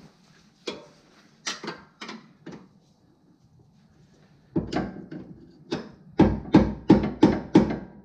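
Hammer blows on the steering rack's mounting bolt of a 2010 Camaro SS, driving the bolt out: a few scattered light taps, then from about halfway a fast, even run of heavy strikes, about three a second.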